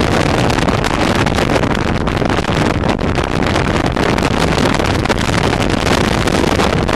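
Waterfall's steady rushing roar of falling water.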